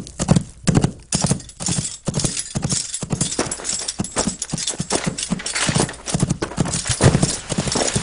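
Horse hoofbeats clip-clopping in a quick, steady rhythm of several strikes a second.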